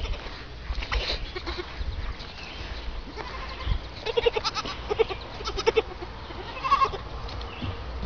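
Small goats bleating: several short calls, most of them in the second half.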